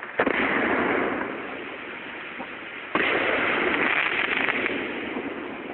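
Big firework going off: a sharp pop just after the start, then dense crackling. A second sudden burst about three seconds in brings more crackling, which fades slowly.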